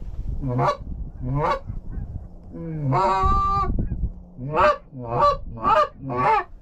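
Canada goose honks: two single honks, a longer drawn-out call in the middle, then four honks about half a second apart.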